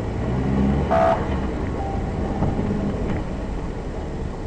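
Car engine and tyre noise heard from inside the cabin through a dashcam, a steady low rumble, with a brief higher-pitched sound about a second in.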